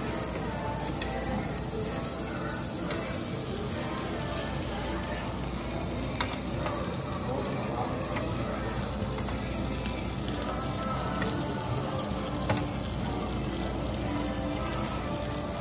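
Meat sizzling steadily on a charcoal tabletop Korean barbecue grill, with a few sharp clicks.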